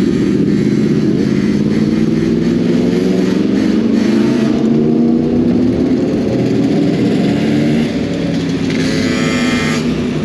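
Motorcycle engine running under acceleration, its pitch rising slowly over several seconds, with a short rush of hiss near the end.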